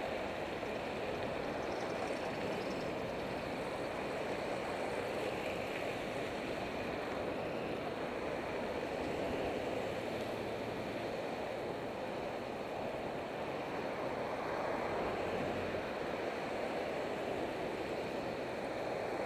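Steady rushing of wind and passing road traffic, picked up by a helmet camera's microphone on a moving bicycle.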